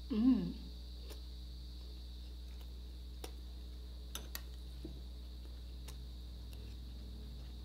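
A brief closed-mouth "mm" of enjoyment while chewing, then a few faint light clicks, like a metal spoon touching a glass dipping bowl, over a steady low background hum.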